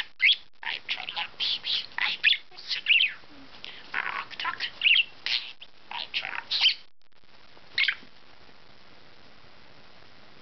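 Budgerigar chattering and warbling in quick, rapid chirps and squawks, which stop about eight seconds in.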